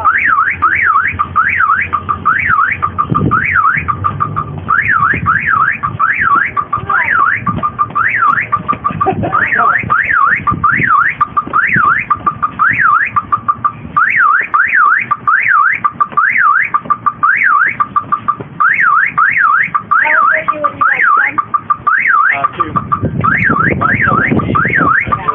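Car alarm siren sounding: a fast warble sweeping up and down about three times a second, in runs broken by short steady tones, repeating over and over.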